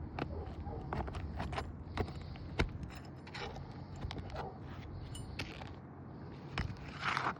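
Scattered clicks, taps and scrapes of hand tools working under asphalt roof shingles to get at a nail, with a longer scrape near the end.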